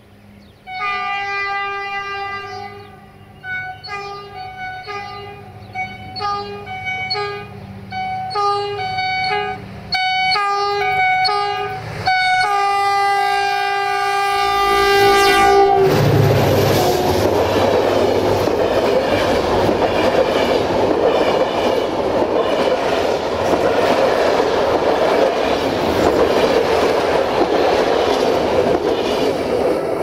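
Locomotive air horn sounding a long chord, then a rapid string of short toots, then another long blast of about three seconds. At about the halfway point the horn stops, and the passenger train's locomotive and coaches pass close by with a loud rumble and wheel clatter on the rails.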